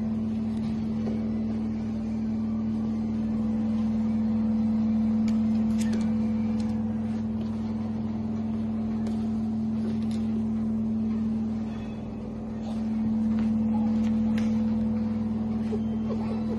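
A steady machine hum with a low, even pitch. It dips briefly about twelve seconds in, with a few faint clicks scattered over it.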